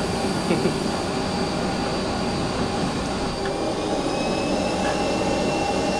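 Vacuum motor of dryer vent cleaning equipment running steadily, with a high whine over the drone.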